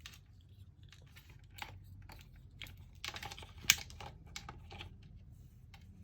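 Scattered light clicks and taps of a plastic collectible figure and its parts being handled, with one sharper click a little before four seconds in.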